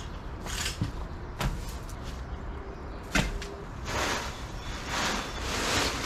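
Blue plastic tarp rustling and crinkling as it is dragged off the backhoe, loudest from about four seconds in, with a few sharp knocks before it.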